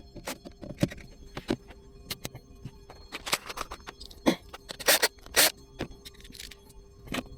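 Irregular knocks, clicks and scrapes of objects being handled and set down, the loudest knocks about halfway through, over a faint steady hum.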